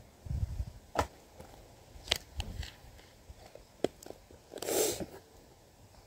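Handling noises as bars of homemade soap are set down on a towel-covered table and a silicone soap mold is picked up: a few soft thumps, several sharp clicks, and a brief louder rustle near the end.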